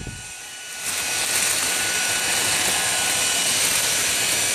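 Handheld hair dryer running and blowing hot air: a steady rush of air with a faint motor whine, getting louder about a second in.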